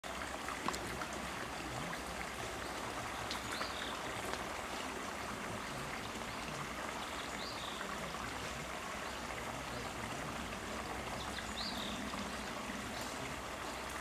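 Stream water flowing and trickling steadily, with a short high call repeating three times a few seconds apart.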